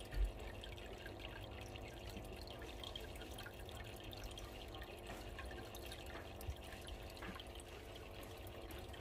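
Water trickling and splashing from an outlet pipe into a saltwater aquarium: a steady, faint patter of drips and splashes over a low steady hum. A single soft thump comes just at the start.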